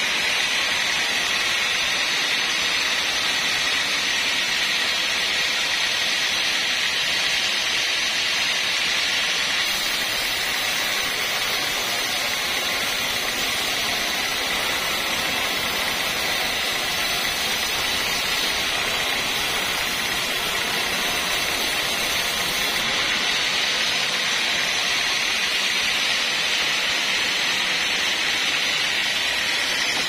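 Band sawmill running and ripping through an old kayu jawa log, a loud, steady hissing whine from the blade and motor.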